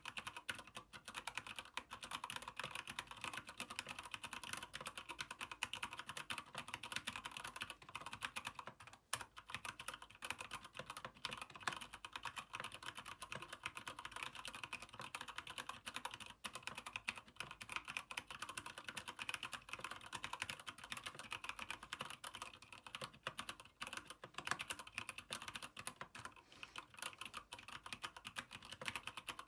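Fast, continuous typing on a Keychron K8 mechanical keyboard with Gateron Brown switches and an aluminium frame: a dense clatter of keystrokes, with a brief pause about nine seconds in.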